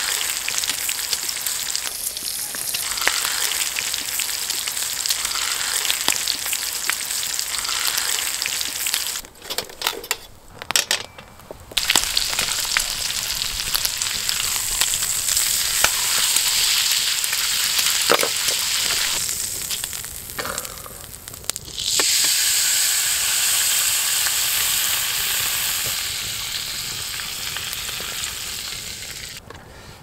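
A steak searing in butter in a cast-iron pan over a wood fire: a loud, steady sizzle. It drops out briefly about ten seconds in and again around twenty seconds, comes back louder, and fades near the end.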